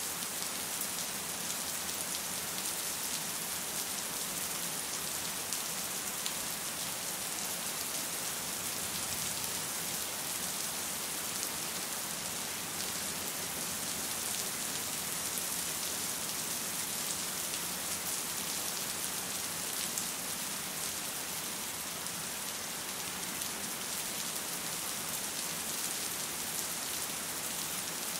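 Steady rain: an even, high hiss of falling drops with faint fine patter, holding at the same level throughout.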